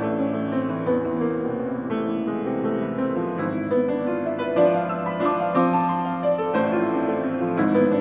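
Grand piano played solo: a fast, dense passage of rapid notes over sustained lower notes.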